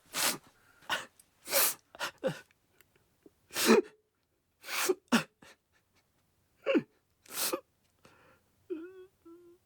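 A man crying: a series of sharp, sobbing gasps for breath, several breaking into short falling cries, then two brief whimpers near the end.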